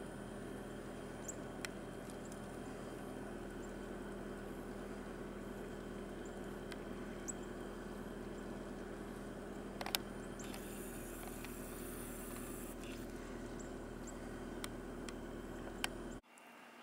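Steady low hum of a distant engine running, with a few faint clicks over it; it cuts off abruptly near the end.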